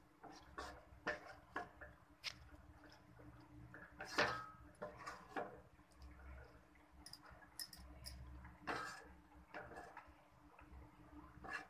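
A spatula stirring wet chopped cabbage and potatoes in a nonstick kadhai, making irregular scrapes and light knocks against the pan. The loudest strokes come about four seconds in and near nine seconds, over a low steady hum.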